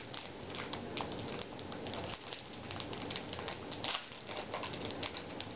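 Foil trading-card booster pack crinkling and crackling in the hands, in irregular short bursts, as it is handled and opened.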